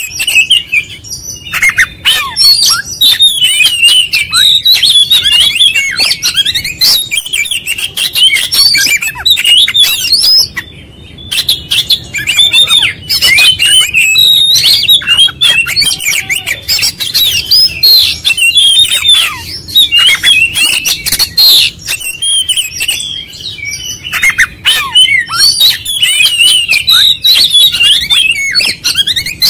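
Male oriental magpie-robin singing nonstop, a fast stream of varied whistles and chirps in the stuttering 'konslet' style, running through its full repertoire. The song breaks off briefly about eleven seconds in.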